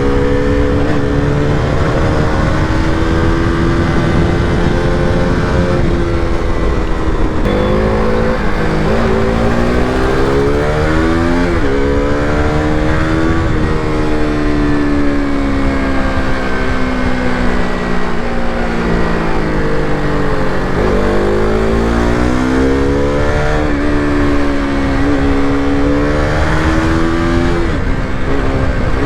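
KTM RC200's single-cylinder engine under way, its pitch climbing and falling several times as the bike accelerates and slows, with sudden drops at gear changes. A steady low rush of noise runs beneath it.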